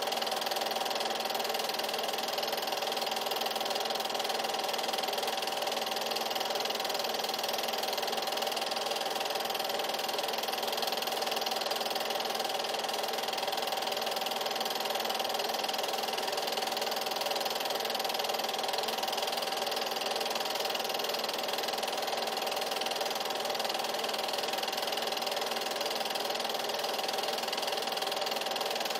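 8mm film projector running: a steady mechanical whir with a constant hum that does not change.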